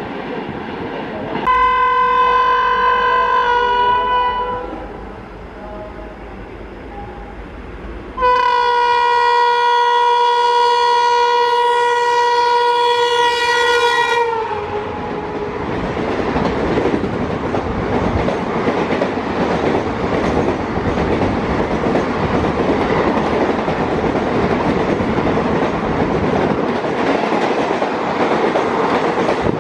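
Two blasts of an Indian Railways locomotive horn, a short one of about three seconds and a longer one of about six seconds that dips in pitch as it cuts off, followed by the steady rumble and clickety-clack of a train running on the track.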